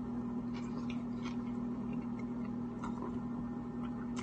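Steady low hum with a few faint, irregular clicks over it.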